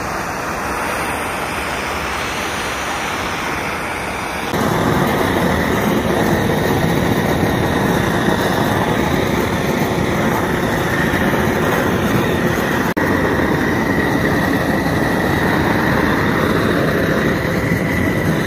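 Hand-held gas torch burning steadily as its flame is played over the wood to char the surface. It gets louder about four and a half seconds in.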